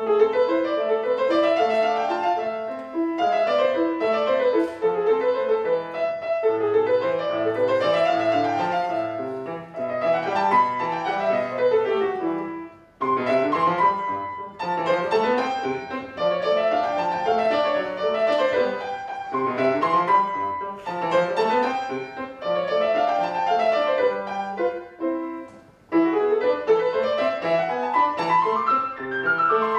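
Solo piano starting a new piece after a short silence, played in quick flowing runs and broken chords that sweep up and down. Two brief breaks between phrases come about halfway through and near the end.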